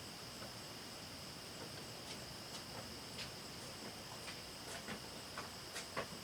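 Faint background hiss with a steady high-pitched drone, and light clicks and knocks that grow more frequent and louder toward the end.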